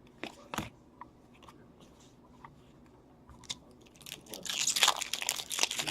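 A couple of light clicks from trading cards being handled, then about four seconds in a hockey card pack's foil wrapper crinkles loudly as it is opened.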